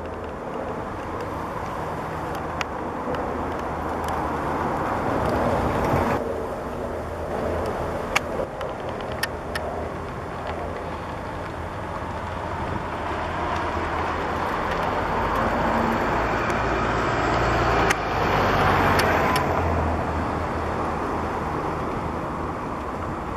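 Steady road-traffic noise, swelling as vehicles pass about a quarter of the way in and again near the three-quarter mark, with a few sharp clicks.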